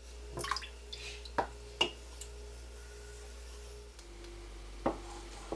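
About half a dozen light clinks and knocks of kitchenware being handled, over a steady low hum.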